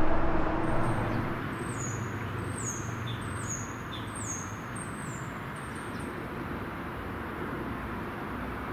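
A small bird calls repeatedly: about six short, high, falling notes, a little under a second apart, ending about six seconds in. Under them is a steady hum of road traffic, after a passing vehicle fades away in the first second or so.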